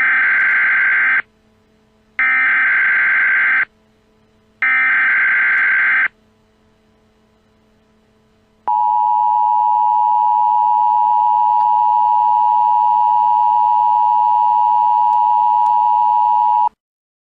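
Emergency Alert System tones: three bursts of SAME header data, each about a second and a half with short pauses between, then after a gap the steady two-tone EAS attention signal for about eight seconds. The attention signal cuts off suddenly near the end.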